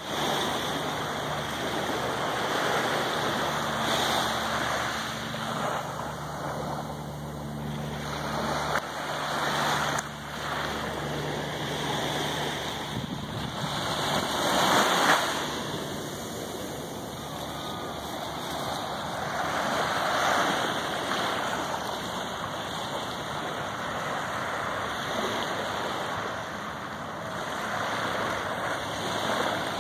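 Small waves lapping and washing up on a sandy beach, the wash swelling and easing every few seconds. A faint low steady hum lies under it for the first dozen seconds.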